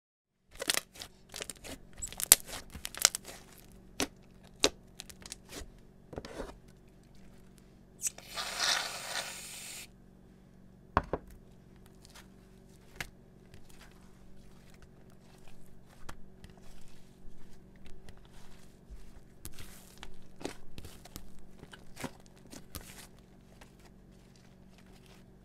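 Thick slime being squeezed, pressed and stretched by hand, giving repeated sticky pops and crackles, the loudest in the first few seconds. About eight seconds in there is a hiss lasting about two seconds.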